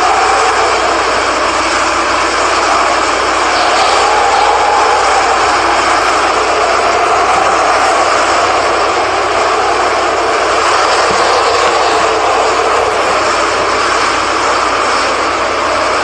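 Strong storm wind roaring steadily through trees and around the building, gently swelling and easing, ahead of a hurricane's landfall.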